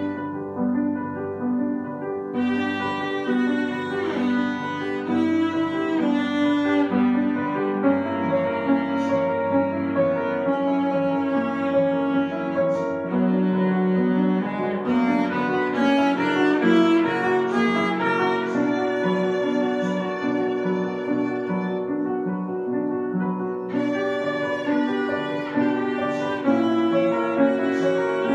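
Cello and upright piano playing a duet: a bowed cello melody with piano accompaniment, notes continuing without a break.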